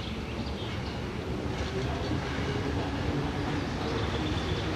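Austrian class 1099 narrow-gauge electric locomotive hauling a passenger train on its approach: a low rumble of the train on the track that grows slowly louder, with faint steady humming tones.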